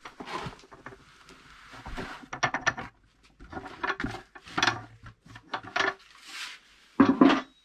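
Dry groundbait mix poured from a plastic bucket into a bait bowl: a soft hiss of the crumbly mix sliding out, then a run of knocks and clatters as the bucket is tapped and handled, with a loud thump near the end.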